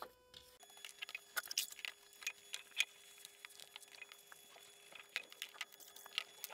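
Faint, irregular small clicks and taps of cast-iron dumbbells being handled and lightly brushed with a wire brush.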